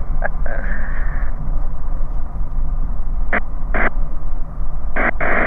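Bristell light aircraft's engine running with a steady low drone in the cockpit as the aircraft rolls along the strip after landing. There are two short clicks around the middle and a brief burst of noise near the end.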